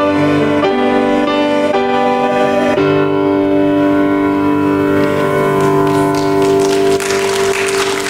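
Church choir and grand piano ending an anthem: a few changing chords, then a long held final chord. Near the end a short spell of clapping follows.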